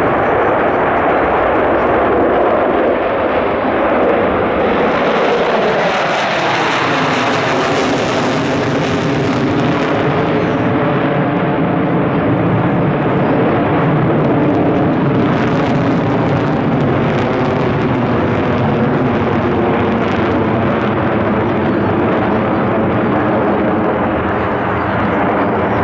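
Formation of four Sukhoi Su-35S fighter jets flying overhead, a loud, steady jet engine noise. About six seconds in the engine tones slide down in pitch as the jets pass, then hold steady.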